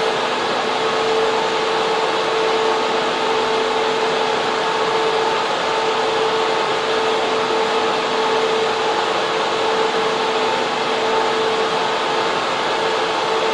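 Data center server room: server cooling fans and air-conditioning units running, a steady loud rush of air with a constant hum tone in it.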